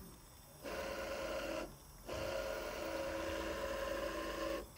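Small AC servo motor (100 W JMC iHSV57) driving a Taig CNC mill's 20 TPI leadscrew at 75 inches per minute: a steady multi-tone whine that starts about half a second in, drops out briefly about two seconds in, and stops again just before the end as the axis pauses. An extra noise runs with it, which the operator suspects is tubes hitting the inside of the 3D-printed plastic mount; the motor itself runs smoothly.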